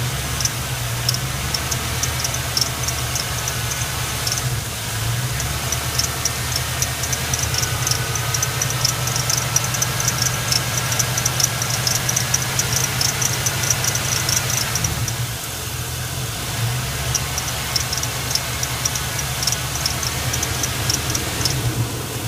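1999 GMC Sierra's 5.3 L V8 running, with a rapid, high-pitched squeak repeating several times a second over the engine hum. The squeak drops out briefly about four seconds in, and again for a couple of seconds about two-thirds of the way through.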